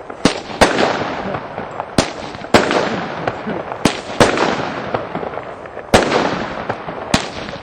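Consumer fireworks going off: about eight sharp, loud bangs at uneven intervals, with crackling in between.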